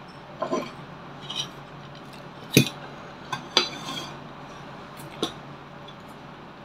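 Metal spoon clinking against a stainless-steel bowl and the bowl knocking on the tabletop as it is picked up and set down: several short sharp clinks and knocks, the loudest about two and a half seconds in.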